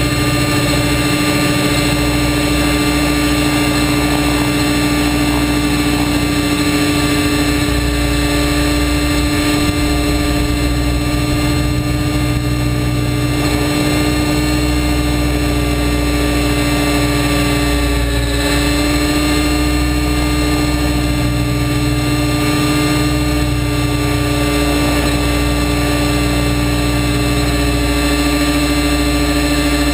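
Compass 7HV electric RC helicopter in flight, its motor, drive gears and rotor running at steady speed, heard close up from a camera mounted on its frame: a steady whine of several tones over rotor and vibration noise.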